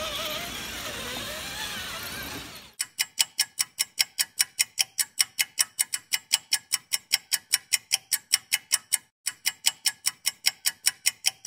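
Electric motors of RC rock crawlers whining and wavering in pitch as they climb. About three seconds in this cuts off abruptly and a steady clock-like ticking begins, about four ticks a second, with one brief break near the end.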